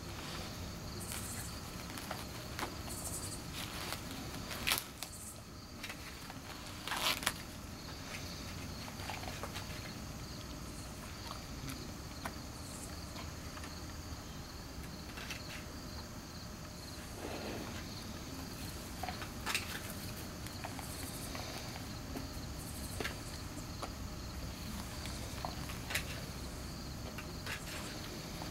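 Dog tearing and chewing dry sweet-corn husks: scattered crackles and crunches, the loudest near 5 and 7 seconds in and again around 20 and 26 seconds. A steady high-pitched chirring runs underneath.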